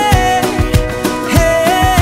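Upbeat background music with a gliding melody line over a steady beat.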